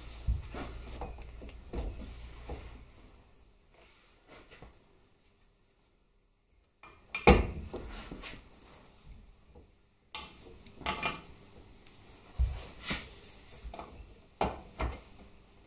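Metal motorcycle parts being handled and fitted by hand: scattered clinks and knocks, a near-silent pause, then one sharp knock about seven seconds in followed by several more.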